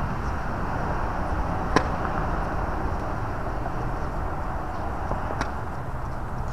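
A tennis racket strikes the ball on a serve with one sharp pop about five seconds in, and a single sharp tap comes a few seconds earlier. Both sit over steady outdoor background noise.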